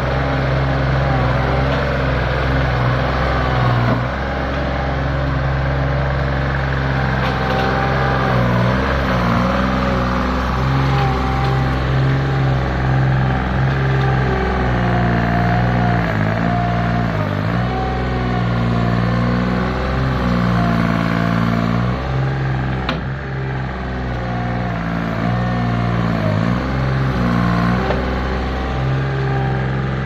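Thomas LB 85 skid steer loader running steadily as it digs soil with its bucket. The engine note dips briefly several times, and a higher wavering whine runs over it.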